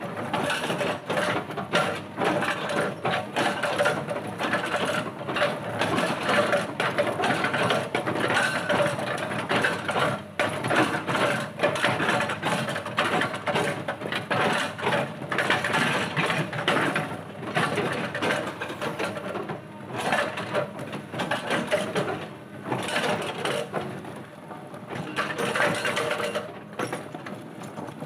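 Hydraulic rock breaker on a Cat tracked excavator hammering boulders: rapid, continuous pounding of the steel chisel against rock over the excavator's engine, with a few brief pauses in the later part.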